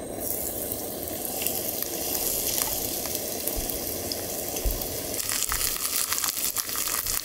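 Minari-jeon (Korean water dropwort pancake) frying in hot oil in a pan: a steady sizzle that turns into sharper crackling pops about five seconds in.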